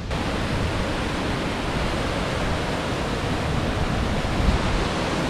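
Steady rushing of a small creek waterfall pouring over boulders into a rock pool. A brief low thump comes about four and a half seconds in.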